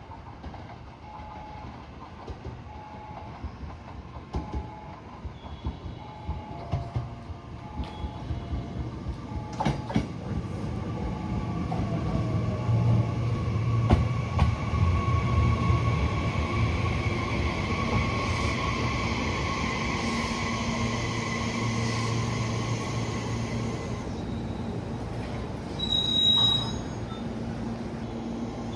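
A train running into the station, growing louder from about a third of the way in, with sharp clicks from the rails and a steady whine. A short tone repeats in a regular pattern over the first few seconds.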